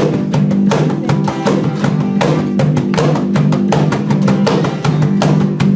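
A live band playing an instrumental passage: strummed guitar and bass over a steady drum-kit beat.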